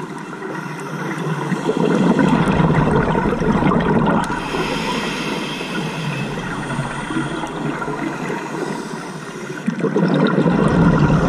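Scuba diver's exhaled bubbles rushing up from the regulator past an underwater camera housing, two exhalations: one swelling about two seconds in, another near the end, with the quieter stretch between.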